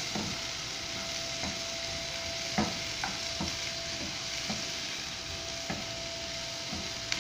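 Sliced onion and green bell pepper sizzling in a nonstick frying pan while being stirred, the spatula knocking and scraping against the pan every second or so, with the sharpest knock a little before halfway.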